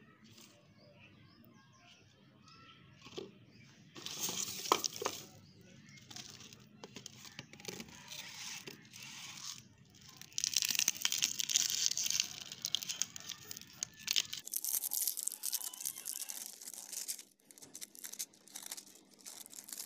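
Clear plastic wrapping crinkling and tearing as it is pulled off new water filter cartridges, in several bursts of rustling.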